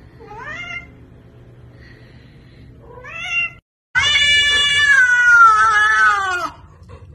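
Domestic cats meowing: two short rising meows, then a loud, drawn-out yowl of about two and a half seconds whose pitch sags toward the end.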